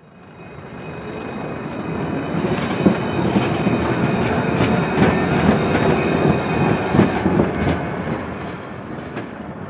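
A train passing slowly: it fades up from nothing, is loudest in the middle and fades away, with irregular clickety-clack knocks of wheels over rail joints and a thin, high, steady whine above the rumble.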